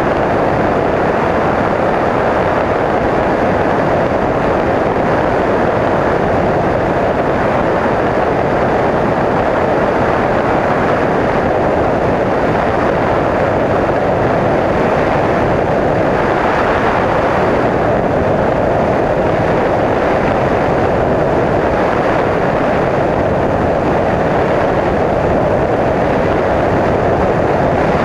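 Steady in-flight noise of a Bristell NG5 light aircraft: the drone of its engine and propeller mixed with wind rushing over the microphone, holding evenly throughout.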